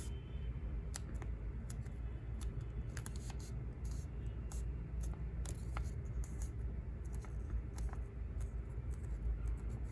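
A small square of memo-pad paper being folded by hand and pressed along the crease: scattered crinkles, scrapes and light taps over a low steady hum.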